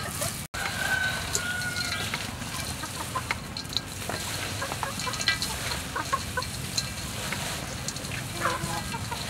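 Chickens clucking in short scattered calls, with the light rustle of fried grasshoppers being tossed by gloved hands in a steel bowl.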